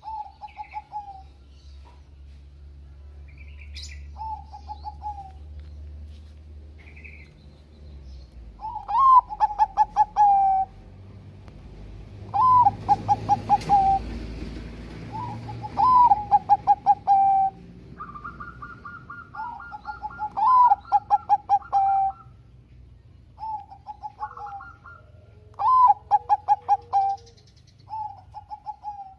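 Bangkok-strain zebra dove (perkutut) singing: repeated cooing phrases, each a rising note followed by a quick string of short clipped coos, about every three to four seconds. Fainter chirps of other birds and a higher-pitched trill in the middle.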